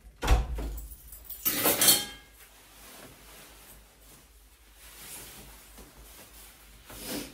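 A front door thudding shut, then a nylon puffer jacket being unzipped with a short loud rasp about a second and a half in and pulled off with soft rustling.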